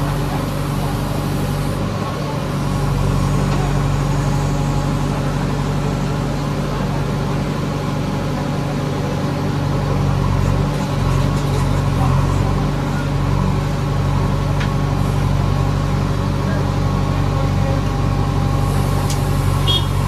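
JCB 3DX backhoe loader's diesel engine running steadily under hydraulic load as the backhoe arm digs and loads dirt, growing a little louder a couple of seconds in.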